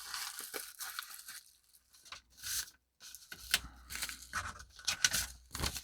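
A small taped paper envelope being torn open and handled: irregular tearing and crinkling of paper, with short pauses and small snaps.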